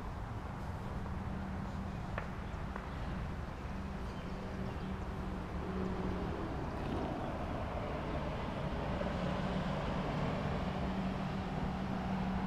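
A motor vehicle engine running steadily, a low rumble with a hum that shifts slightly in pitch about halfway through.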